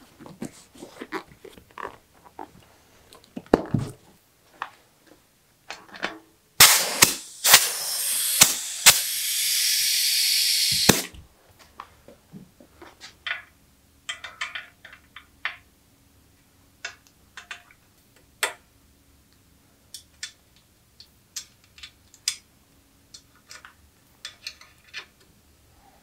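Knobby mountain-bike tyre being worked onto its rim with small rustles and clicks, then a loud steady hiss of air for about four seconds with several sharp pops near its start, as the tyre is inflated. After that, light metallic clicks and taps of a derailleur hanger and small parts being fitted to a steel bike frame.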